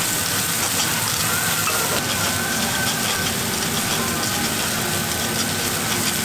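Takoyaki batter sizzling and bubbling in a takoyaki griddle, with metal-tipped picks clicking and scraping against the pan as the balls are turned. A thin steady whine runs underneath.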